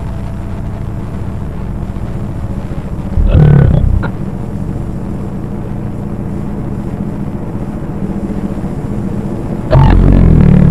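Low, steady rumbling drone of distorted analog-broadcast sound, with two brief louder bursts, one about three seconds in and one near the end.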